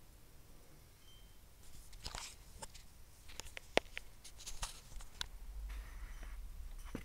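Lexus IS300 Torsen limited-slip differential carrier turned by hand off the car, clicking from the left axle side: a run of irregular clicks and knocks, one sharper than the rest about halfway through. The owner is unsure whether this one-sided clicking is a sign of damaged gear teeth or splines or is normal.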